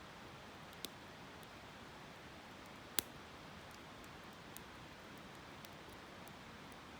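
Wood fire crackling, with a sharp pop about three seconds in and a few smaller ticks, over the faint steady rush of a river.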